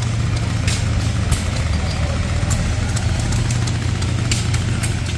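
An engine running steadily at idle, a low even drone, with scattered light clicks over it.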